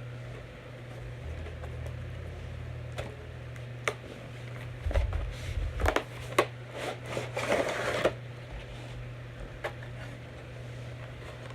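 Action figure packaging being handled and opened: a few separate clicks, then a burst of crinkling, clicking and tapping from about five to eight seconds in, over a steady low hum.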